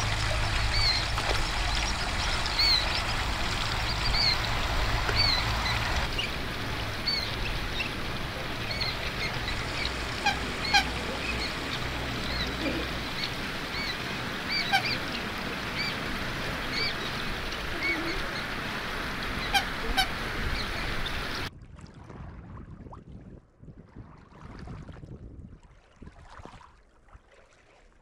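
Common moorhen chicks peeping: short, thin, high peeps repeated about once a second, thinning out in the second half, over a steady low rumble and hiss. About 21 seconds in the background drops away, leaving only faint sounds.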